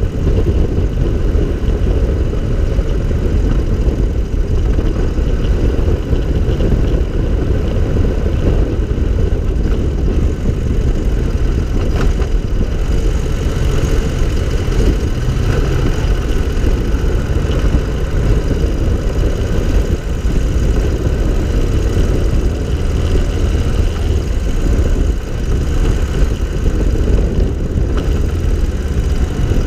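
Engine of a small three-wheeled cyclecar running steadily at low road speed, picked up by a camera mounted on the car itself.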